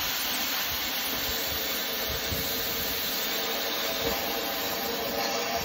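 Oxy-fuel cutting torch flame hissing steadily against a rusty steel pipe.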